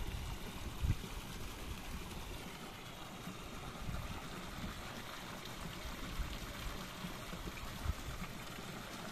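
Flowing river water, with water pouring and trickling off a cast net as it is hauled up out of the river. A couple of low thumps, one about a second in and one near the end.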